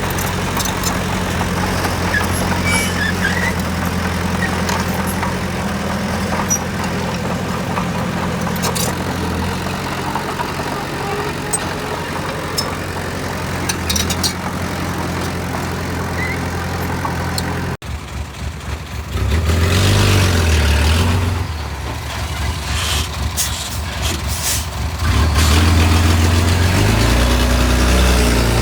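Heavy construction machine's diesel engine running steadily for a long stretch. After a sudden break, the engine revs up and down, louder near the end, with short hisses and clicks over it.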